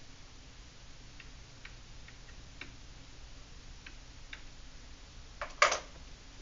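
Faint, irregular clicks of a stylus tapping on a tablet screen while writing by hand, over a low steady hum. One louder knock comes about five and a half seconds in.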